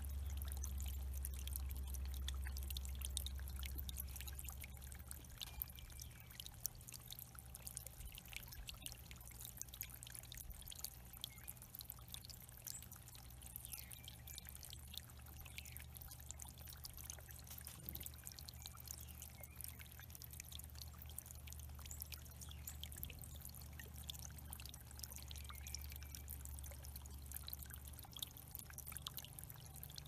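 Water from a small rock bubbler fountain splashing and trickling over stones into a shallow pebble-lined bird pond, with fine crackling ticks and a steady low hum under it that eases about four seconds in.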